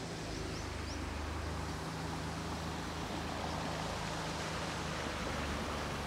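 Boat motor running steadily with a low hum, over a hiss of water. A few faint, short high chirps about half a second in.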